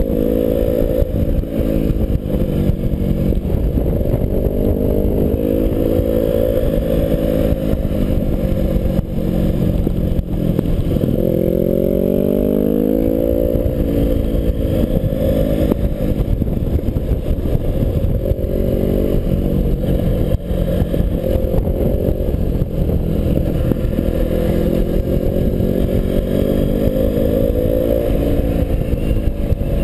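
BMW 650GS motorcycle engine running under load through the bends, its pitch rising and falling with each throttle change and climbing sharply near the middle before dropping back, with wind rushing over the bike-mounted camera.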